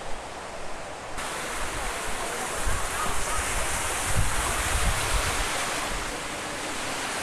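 Steady rush of fountain water falling, starting about a second in, with wind buffeting the microphone in the middle.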